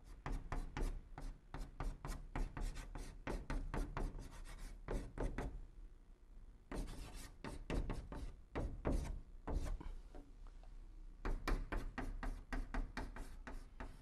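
Chalk writing on a blackboard: rapid runs of short taps and scratches as characters are written stroke by stroke. There is one longer scrape about seven seconds in and a brief lull around ten seconds.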